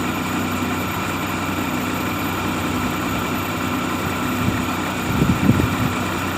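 Maruti Omni's small three-cylinder petrol engine idling steadily, with a few low thumps about five seconds in.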